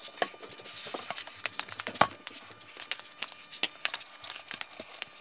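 A car wheel and tyre being pulled off the hub and handled: scattered light knocks and scrapes, with one louder knock about two seconds in.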